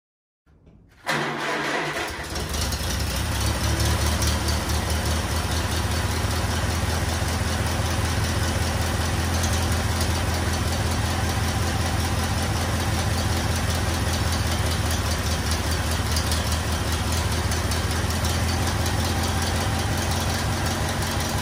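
Old tractor engine running at a steady idle, coming in suddenly about a second in.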